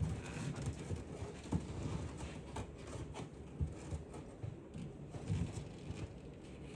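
Irregular light knocks and clicks of a plate being handled, shifted and fitted into place by hand.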